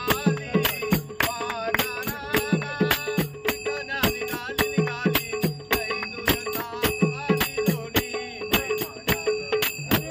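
Devotional bhajan music: a hand drum beating a steady rhythm with hand cymbals ringing along, over a steady held note, with a wavering melody line above.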